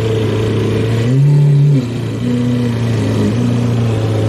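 Lamborghini Aventador SV's V12 engine running at low revs, with a short throttle blip about a second in that lifts the pitch and loudness for under a second before dropping back.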